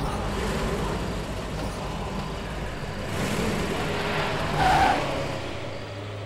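Bus engine running as it approaches, a steady low rumble with road noise. A short, louder tone stands out over it just under five seconds in.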